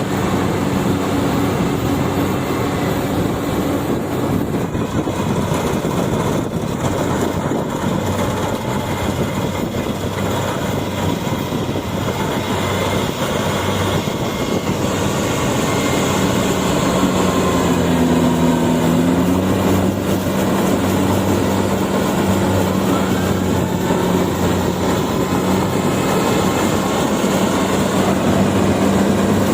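Yanmar AW70V combine harvester running steadily under harvesting load, its diesel engine humming over the clatter of the cutting and threshing machinery. The engine note dips briefly and recovers a little past the middle.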